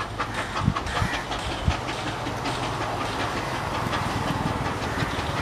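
1855 EIR 21 steam locomotive and its coach moving away along the track: rapid clicks of wheels over rail joints, with a few heavier thumps in the first two seconds, over a steady hiss and rumble.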